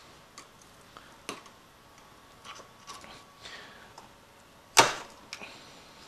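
A thin screwdriver prying and scraping inside the plastic case of an e-bike voltage regulator, working out its sandy filler. It makes scattered small clicks and scrapes, with one loud sharp click near the end.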